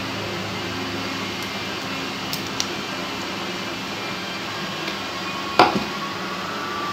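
Steel toenail nippers clipping a thick, curled toenail: a couple of light clicks a little over two seconds in, then one sharp click about five and a half seconds in. Under them is a steady mechanical hum.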